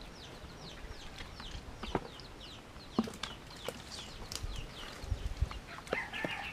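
Birds chirping, a stream of short falling chirps several a second, with a few sharp knocks in between.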